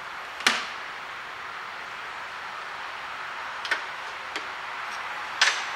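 Four sharp metallic clicks, a strong one about half a second in, two fainter ones later and another strong one near the end, as the Allen key and loosened gearbox drain plug are worked by hand, over a steady background hiss.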